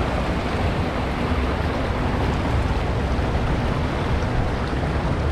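Steady rush of churning water around a river-rapids raft, with wind buffeting the microphone as a low rumble.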